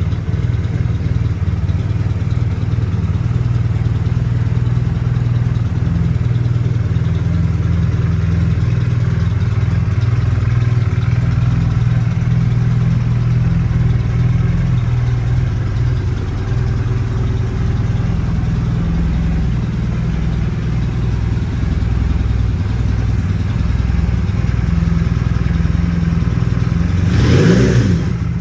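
Honda CB450 DX's air-cooled parallel-twin engine idling steadily, then given a short blip of the throttle near the end that makes the pitch rise and fall.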